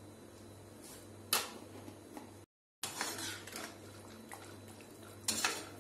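A slotted metal spoon stirring chickpea curry in a metal kadhai, scraping and clanking against the pan, with a sharp clank about a second and a half in and another scrape near the end. The sound cuts out briefly near the middle.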